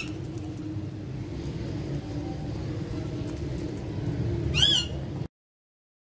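Indian ringneck parrot giving one short, sharp screech near the end, over a low steady background hum; the sound cuts off suddenly just after.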